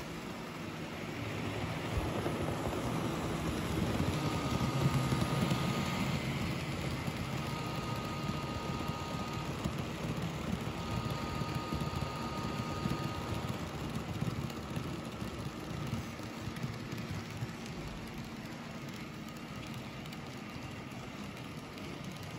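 N-scale model freight train running on sectional track: a steady rumble and patter of many small wheels, loudest a few seconds in as the cars pass close. A thin high whine comes and goes three times.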